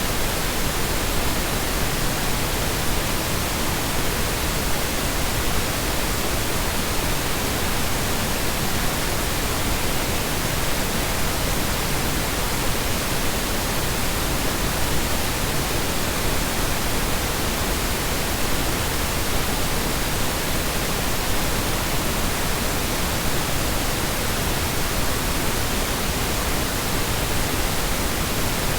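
Steady synthetic Brownian noise: an unbroken, even hiss with no changes in level.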